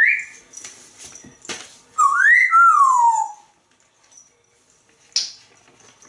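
African grey parrot whistling: a short whistled note, then about two seconds in a longer whistle that rises and then slides down in pitch over about a second. A sharp click comes about five seconds in.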